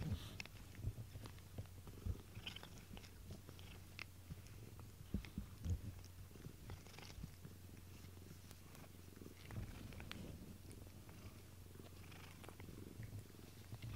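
Domestic cat purring steadily, a low continuous rumble close to the microphone, with scattered soft clicks and rustles of fur brushing against it.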